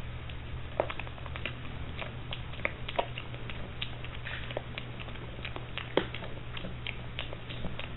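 Piglet eating dry food pellets: irregular crunching and smacking chews, a few louder crunches about a second, three and six seconds in. A steady low hum runs underneath.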